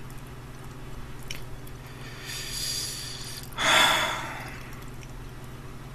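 A man breathing heavily: a soft breath about two seconds in, then a louder, sigh-like breath about three and a half seconds in, over a low steady hum.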